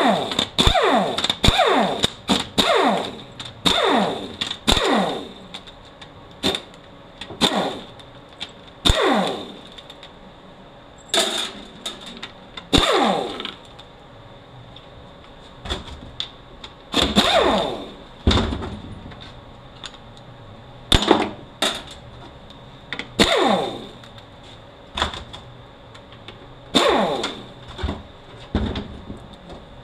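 Pneumatic ratchet spinning out the 10 mm back-cover bolts on a Honda MRVA automatic transmission case, in short repeated runs, each dropping in pitch. The runs come in quick succession for the first few seconds, then one every second or two.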